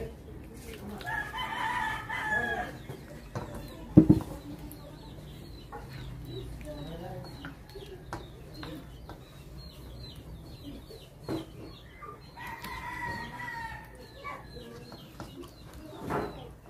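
A rooster crowing twice, each crow about a second and a half long, with one sharp knock about four seconds in.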